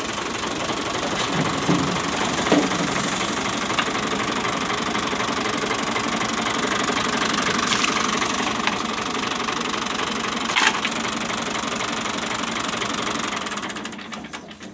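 Tractor-driven wheat thresher running with its New Holland tractor's engine, a steady mechanical clatter with a few sharp knocks. The noise dies down shortly before the end.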